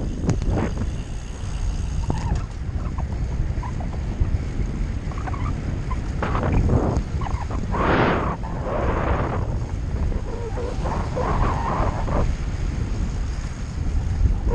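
Wind buffeting the microphone of a handlebar-mounted action camera on a moving bicycle: a steady low rumble. A few short, louder sounds come and go between about six and twelve seconds in.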